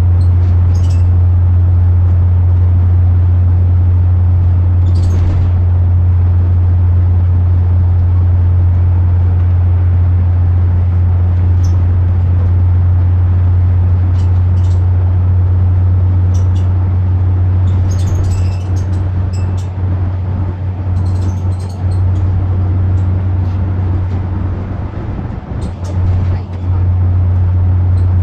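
Cabin noise inside a moving bus: a loud, steady low drone from the engine and road, with short rattles and clicks from the interior. The drone dips a little in the second half and rises again near the end.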